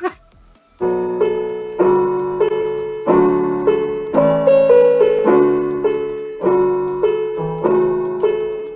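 Piano chords played one after another, each struck and left to ring out and fade before the next.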